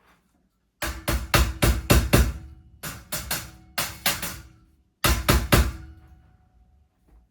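Mallet blows knocking the tiers of a quail cage together: three runs of quick strikes, about four a second, with a faint ringing from the cage after the blows.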